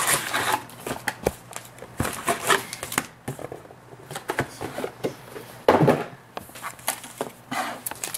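A cardboard trading-card box and its wrapped card packs being handled: the box slid open and the stack of packs pulled out, with light knocks and clicks, scattered rustles, and a louder rustle about six seconds in.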